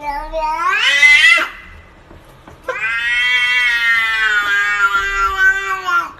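A cat giving two long, drawn-out meows. The first rises in pitch and breaks off about a second and a half in. The second starts near the middle, is held for about three seconds and sinks a little toward the end.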